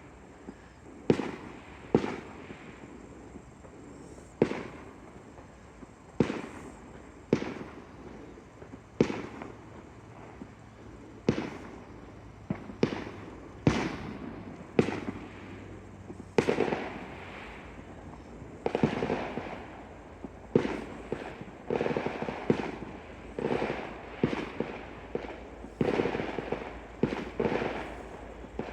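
Fireworks going off: irregular sharp bangs, each trailing off in echo. They are spaced a second or two apart at first, then come thicker and overlapping from about two-thirds of the way through.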